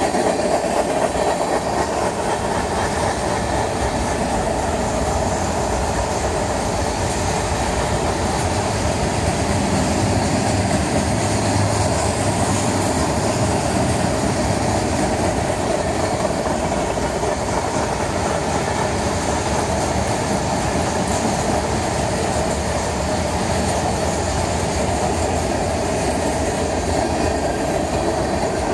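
Freight cars of a mixed manifest train rolling past at steady speed: the even, unbroken noise of steel wheels running on the rails.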